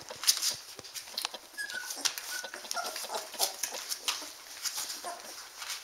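A litter of young standard poodle puppies giving a few short, high squeaks and whimpers, mostly in the middle, over a steady run of soft clicks and rustling as they nurse and crawl on the bedding.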